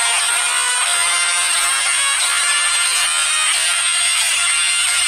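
Cordless electric hair clipper buzzing steadily while shaving a head down to stubble, with background music beneath it.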